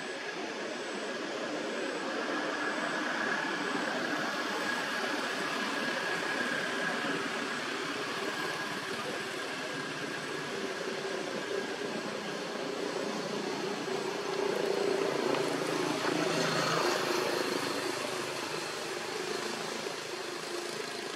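Steady outdoor background noise: a hiss with a low, engine-like drone under it that grows louder for a few seconds near the end, then eases off.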